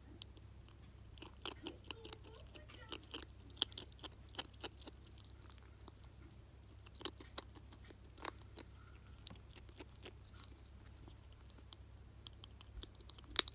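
A ferret chewing dry kibble pellets: irregular crisp crunches (poripori) that come in clusters and grow sparser in the last few seconds.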